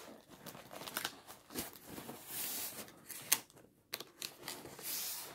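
Handling noises: scattered light clicks and knocks with two short bursts of rustling, and one sharper click a little past three seconds in.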